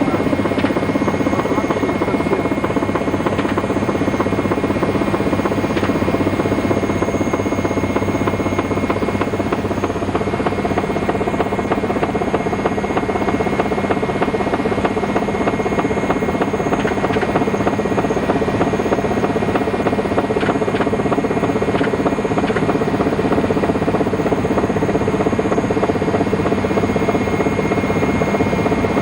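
Helicopter in flight: a steady, loud drone of turbine engines and rotor, unchanging throughout.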